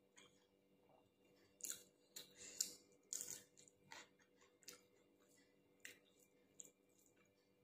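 Faint mouth sounds of a person chewing a mouthful of rice with chilli: a scatter of short wet clicks and soft crunches, busiest between about one and a half and four seconds in.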